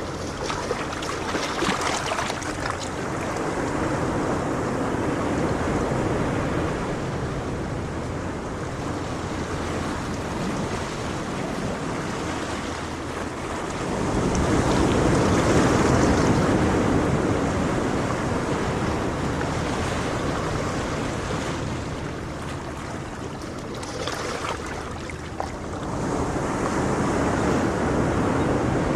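Ocean waves breaking and washing up the shore, surging in and drawing back; the biggest swell comes about halfway through and another near the end. Some wind is on the microphone as well.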